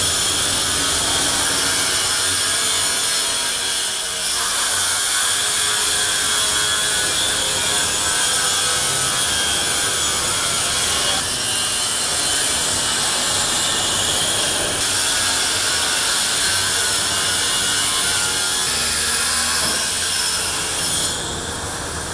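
Steady, loud machine noise from the repair work, a continuous grinding hiss like a power tool cutting, with no break and its tone shifting slightly every few seconds.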